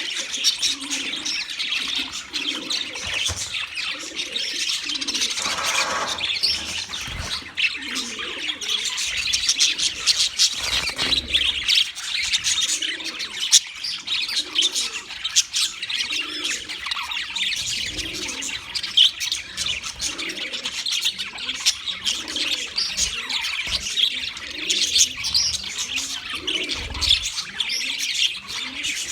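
A flock of budgerigars chattering and chirping continuously, many birds calling over one another. Beneath it a low call repeats about once a second.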